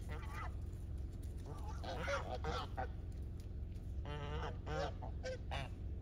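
Geese honking: one call near the start, a run of several calls about two seconds in, and another run from about four seconds in.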